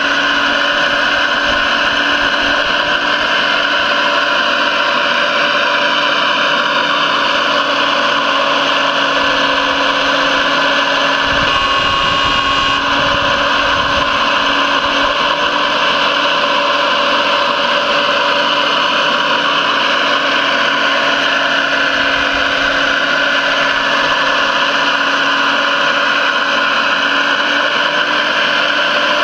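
Radio-controlled model Liebherr R 970 SME excavator's hydraulic drive running steadily, a continuous mechanical hum made of several fixed tones. A low rumble joins in for a few seconds around twelve seconds in.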